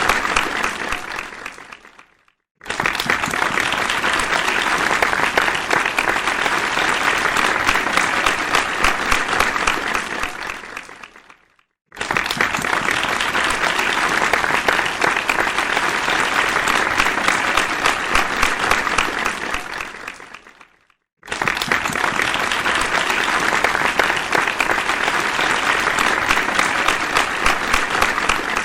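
Audience applause in separate rounds: one round fades out at the start, then three more follow, each starting suddenly, running steadily for about eight seconds and fading away, with a brief silence between rounds.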